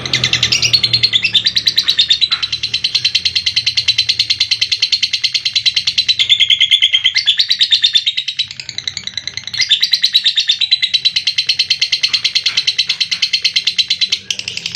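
Lovebird giving a long ngekek: a loud, rapid, high-pitched chattering trill of many pips a second, with a short let-up about eight seconds in before it carries on.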